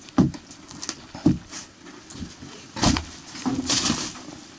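A few sharp knocks and bumps on wooden boards, then a brief rustle or scrape near the end, as someone moves among charred rafters and torn foil insulation.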